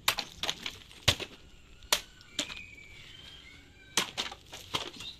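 Karambit blade slashing through plastic water bottles: a run of sharp cracks and knocks as the blade strikes and the bottles are knocked onto the wooden table, with a pause in the middle.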